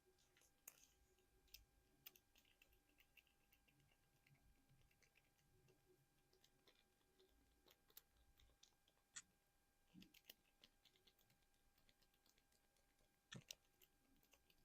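Faint, sparse fingernail taps and clicks on a small hard object, with a little light scratching, the loudest two taps near the end.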